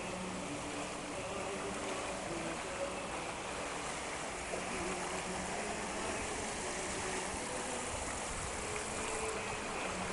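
The Gave de Pau in flood: a swollen river's fast water rushing past in a steady, unbroken noise.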